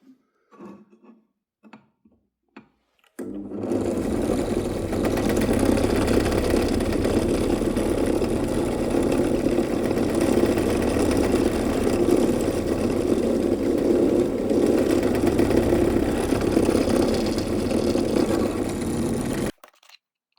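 Electric drill running steadily, drilling through thin 0.7 mm aluminium sheet on a fixture plate to copy its hole pattern. It starts about three seconds in, after a few faint taps, and stops suddenly near the end.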